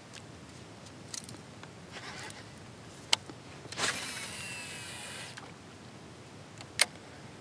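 A cast with a Shimano SLX DC baitcasting reel: the spool spins out for about a second and a half with a hiss and the faint whine of its digital casting brake. A sharp click comes shortly before it and another a little after, with light handling rustles around them.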